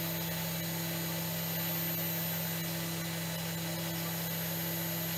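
CNC spindle running steadily with a 6 mm carbide end mill taking a light side cut (0.1 mm wide, 10 mm deep) along a hardened steel bar, giving an even hum with a faint high whine; the cut puts no audible load on the spindle.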